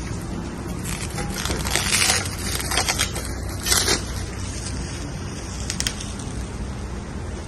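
Packing material being crumpled and rustled in several irregular bursts over a low steady hum.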